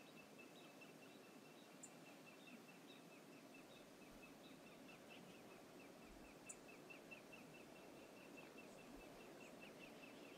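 Faint steady rush of river water, with a bird calling throughout in a quick series of short high notes, about four a second.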